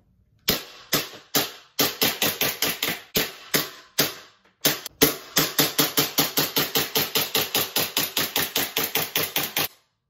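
Elite Force Glock 18C Gen 3 green gas blowback airsoft pistol fired in semi-auto: a few spaced shots, then a quick run, a short pause, and a long fast string of about five or six shots a second that stops shortly before the end.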